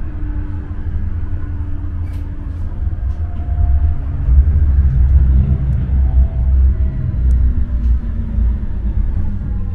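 Tram in motion heard from inside the car: a steady low rumble of wheels on rails, louder for a few seconds midway. A faint motor whine sits above it and falls in pitch near the end, with a few light clicks and rattles.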